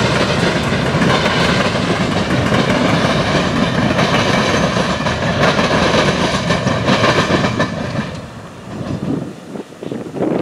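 Freight train of open-top hopper cars rolling past, with the rapid clickety-clack of steel wheels on the rails. The sound falls away about eight seconds in as the last cars pass and the train moves off.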